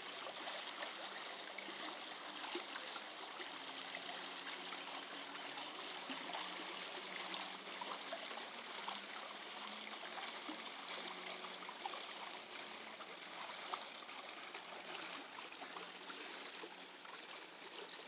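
Rain-swollen creek rushing over its bed, a steady even rush of flowing water.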